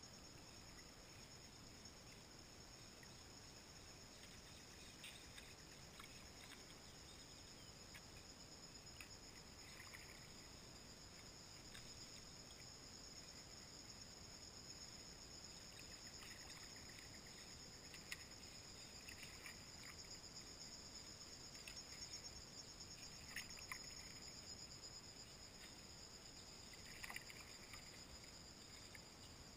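Faint, steady high-pitched buzzing of insects in the reeds, with soft, irregular splashes of paddle strokes in the water, more frequent in the second half.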